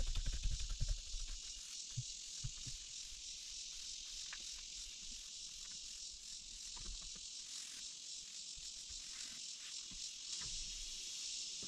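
Steady, high-pitched chorus of insects, with a few low bumps in the first second.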